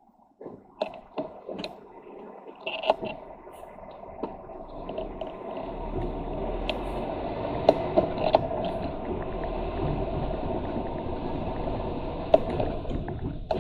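Lorry cab noise building up as the truck pulls away and gathers speed: engine and road rumble rising over the first few seconds, then holding steady. Scattered knocks and rattles run through it.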